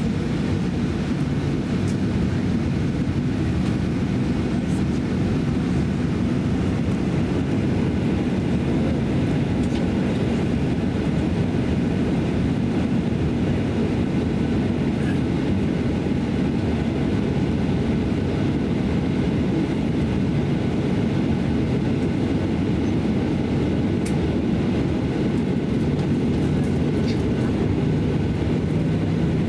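Steady cabin noise inside a Boeing 737-800 taxiing: a low, even rumble from the engines at taxi power and the rolling airframe, with a faint hum and air hiss over it.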